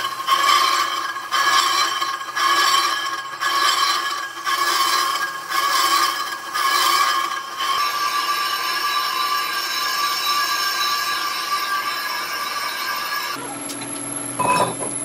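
A lathe tool cutting a cast-iron truck brake drum as it turns, a scraping screech with a steady high ring, pulsing about once a second at first and then steadier. Near the end it gives way to a lower, steadier machine hum.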